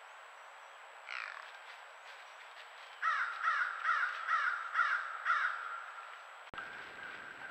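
A crow cawing: one call about a second in, then a run of six harsh caws in quick succession, about two a second.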